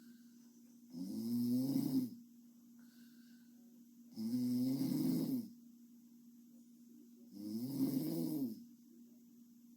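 A young woman snoring in her sleep: three drawn-out pitched snores, each about a second long, roughly three seconds apart.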